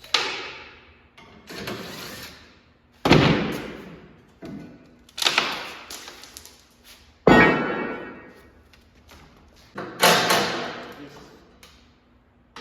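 A series of loud, sudden metal impacts, about one every two seconds, each ringing out and dying away, from work on a drivetrain. Five of the strikes are heavy and a couple are lighter.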